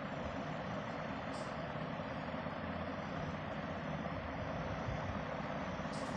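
Steady background rumble and hiss, even in level throughout.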